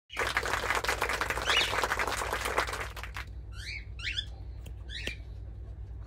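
A dense, scratchy rustle full of rapid clicks for about the first three seconds, then a cockatiel gives three short chirps in quick succession.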